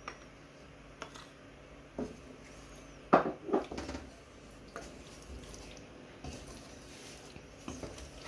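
A cooking spoon knocking and scraping against a pot while chicken is stirred in its sauce: a few sharp knocks, the loudest pair about three seconds in.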